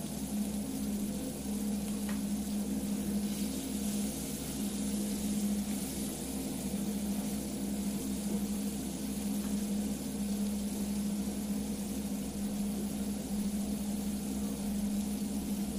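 Picanha sizzling on a hot cooking stone, a steady hiss over a constant low hum.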